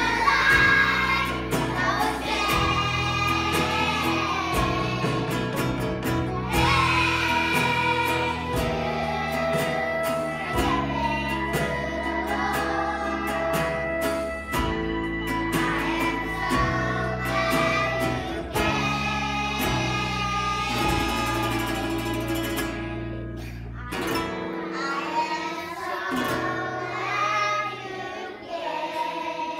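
A children's choir singing a song together, accompanied by a strummed acoustic guitar.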